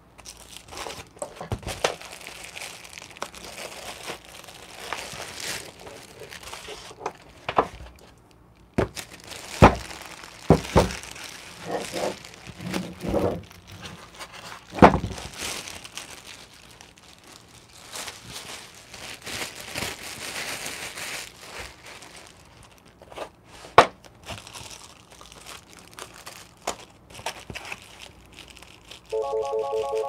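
Clear plastic bag crinkling and rustling as it is pulled off a coffee grinder, broken by several sharp knocks as the grinder and foam packaging are handled. A short electronic tone sounds near the end.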